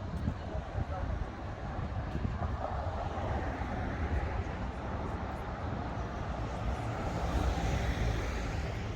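City street traffic: a steady low rumble of vehicles, with the noise of a passing vehicle building up and peaking near the end.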